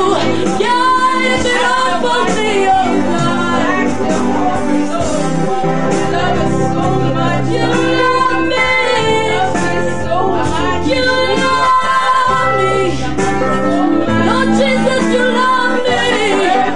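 Women's voices singing a gospel worship song together, accompanied by an electronic keyboard.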